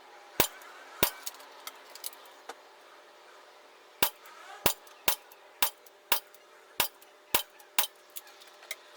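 Gamo PR-776 CO2 revolver air pistol fired in quick succession: about a dozen sharp cracks roughly half a second apart, with a few softer clicks in between and a pause of a second or two in the middle.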